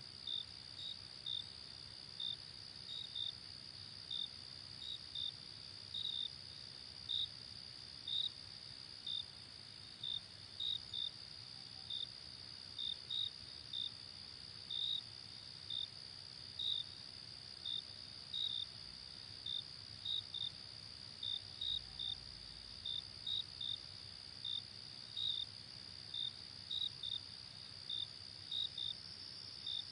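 Night ambience of chirping insects, cricket-like: a steady high trill with short chirps about twice a second, unevenly spaced, over a faint low hiss.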